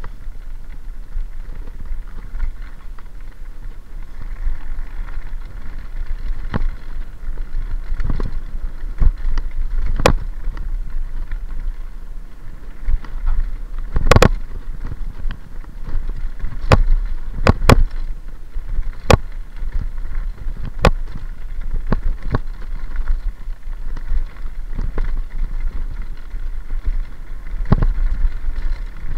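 Mountain bike rolling fast down a gravel track: a steady low rumble of tyres on loose stones and wind, broken by about a dozen sharp knocks and rattles as the bike jolts over bumps, the loudest cluster about halfway through.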